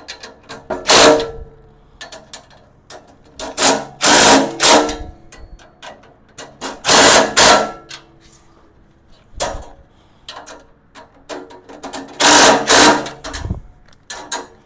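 Cordless electric driver running in short bursts, about five in all, as bolts are run in and tightened on a steel tool cart, with small clicks and knocks between the bursts.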